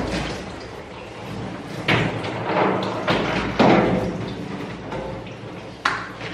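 Water from a hand-held shower spraying onto a wet dog in a stainless steel grooming tub, with several sharp knocks and splashes against the steel, the loudest about two and three and a half seconds in.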